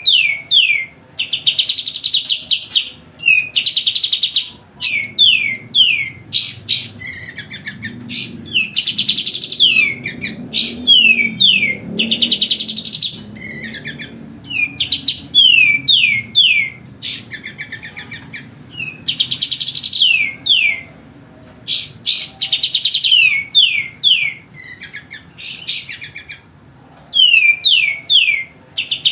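Kapas tembak songbird singing nonstop in a noisy, rapid chatter: phrase after phrase of quick falling whistled notes and fast buzzy trills, with only short pauses between. It is a bird in full song, the kind of recording played as a lure to set other birds singing.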